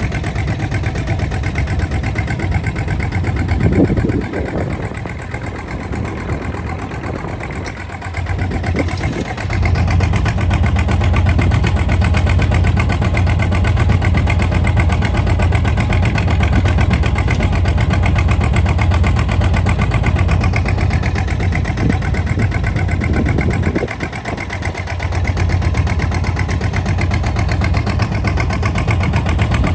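Kubota ZT155 DI single-cylinder diesel engine of a two-wheel hand tractor running steadily while it tows a loaded trailer. It grows louder about ten seconds in, with a brief dip late on.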